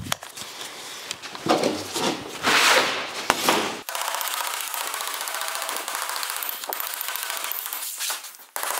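Sheet-steel panel shifted and scraping on a steel table, then a hand hammer striking the panel's edge in a fast, even run of blows for the last few seconds, hammering out excess curve so the panel settles flat.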